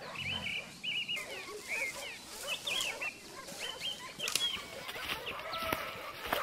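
A rapid, irregular run of short, high yelping calls, with a few faint sharp cracks in the second half.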